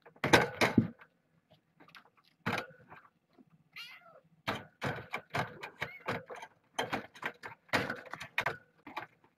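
Kittens mewing close to the microphone, with one clear, drawn-out mew about four seconds in, among a run of sharp knocks and rustles.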